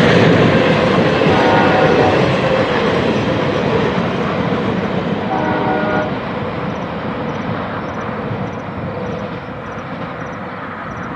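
Freight train passing with a steady rumble of rolling cars that slowly fades as it moves away, its horn sounding briefly twice, about a second and a half in and again around five and a half seconds.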